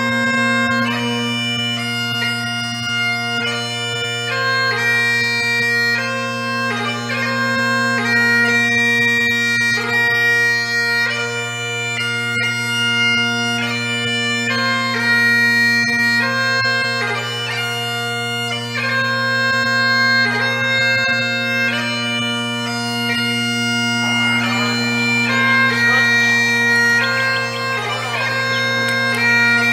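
Bagpipes playing a slow tune over steady low drones. Later on, the sound turns rougher, with a hiss added under the pipes.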